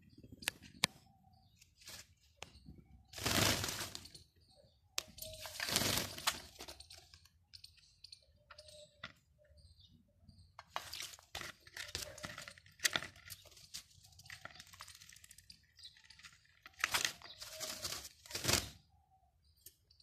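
A parakeet bathing in a steel water bowl, dipping and fluttering its wet wings so that water splashes and feathers flap. The splashing comes in bursts of a second or two, several times, with short pauses between.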